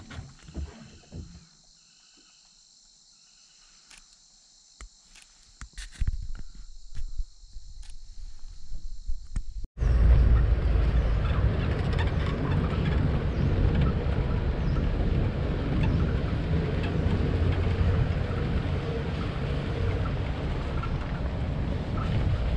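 Safari jeep driving on a forest dirt track: a steady, loud rumble of engine and wind noise. It comes in abruptly about ten seconds in, after a quieter stretch of scattered knocks over a steady high hiss.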